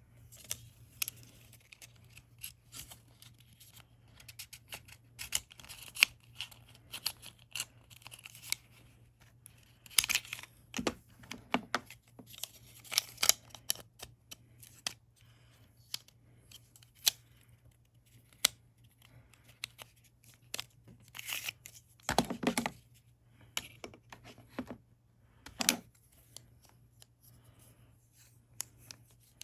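Hi-Capa 4.3 airsoft pistol parts being handled and fitted together by hand: irregular clicks, taps and small clacks of metal and plastic parts, with a few short scraping, sliding stretches. A faint steady low hum runs underneath.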